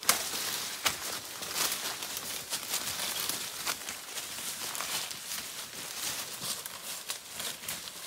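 Footsteps and rustling brush as people climb through dense undergrowth: dry leaves crinkling and twigs crackling underfoot, with an occasional sharp snap.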